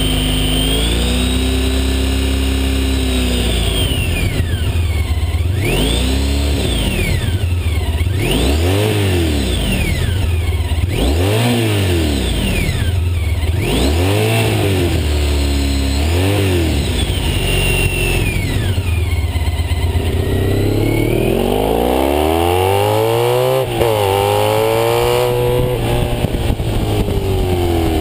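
Honda ST1300's V4 engine with Staintune mufflers, baffles in, revved in neutral. A short rev near the start, then five quick blips that each rise and fall back, then one slower, longer rev up and down near the end.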